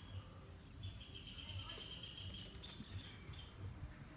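Faint birdsong: a thin, high note held for about two seconds, with a few short chirps around it, over a low rumble on the microphone.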